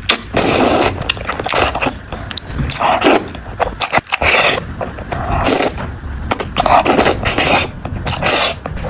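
Close-miked eating sounds: a person chewing and handling food, in irregular bursts of noise.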